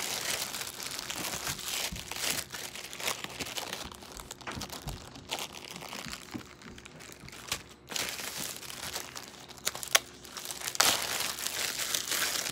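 Hands kneading and stretching slime: a continuous noisy rustle with scattered clicks and a couple of sharper snaps about ten and eleven seconds in.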